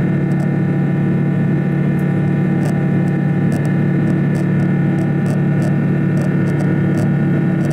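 Airliner's jet engines heard inside the cabin during the climb after takeoff: a loud, steady drone made of several unchanging tones over a rushing noise.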